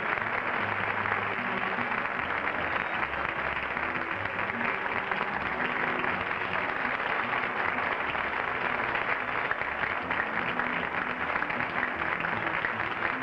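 Studio audience applauding steadily over the show's closing theme music.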